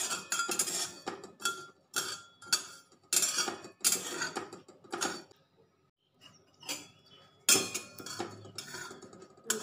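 Flat metal spatula scraping across a kadai (Indian wok), stirring whole coriander and cumin seeds as they dry-roast, in a run of short strokes with a pause of about a second a little past halfway.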